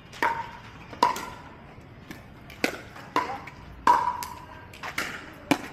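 Pickleball rally: paddles hitting the hollow plastic ball, about seven sharp pocks at an uneven pace, each with a brief ringing tone.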